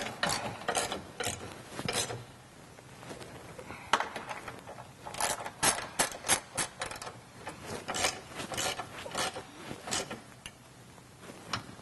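Hand ratchet with a socket clicking in several short runs of rapid clicks, with pauses between, as the bolts at the fuel tank are run down and tightened.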